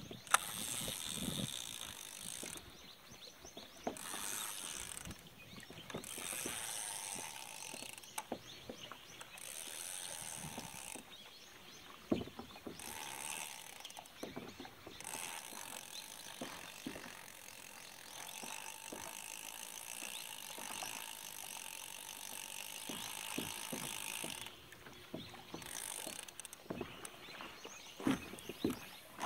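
Diamond Reel Micro II inner-spool spinning reel being cranked to retrieve line, its gears whirring in spells of a few seconds with short pauses between. The longest run of winding lasts about nine seconds midway.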